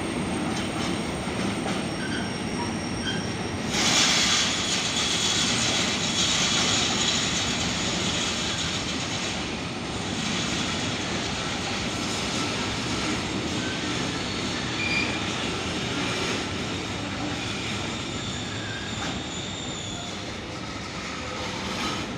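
A train running along the track, with steady rail noise and wheels squealing against the rails; it gets suddenly louder and hissier about four seconds in, then slowly fades.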